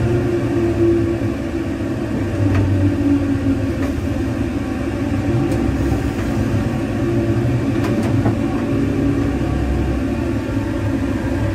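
Rear-mounted inline-six diesel engine of a Scania K400IB coach, heard from inside the cabin, running with a steady rumble and hum. A few faint clicks come through at intervals.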